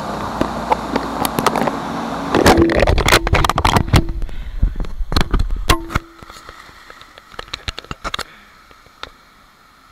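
Water splashing and sloshing as a person wades into a rocky pool and dunks, over a rushing noise with rumble and knocks of handling on the camera's microphone. About six seconds in it goes much quieter, leaving scattered small splashes and drips.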